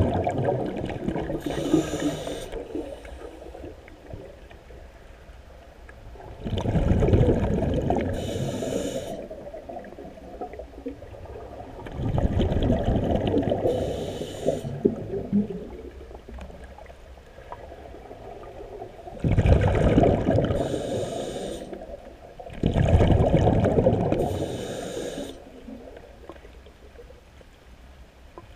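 Scuba diver breathing through a regulator underwater: five breaths a few seconds apart, each a rush of exhaled bubbles with a short hiss from the regulator.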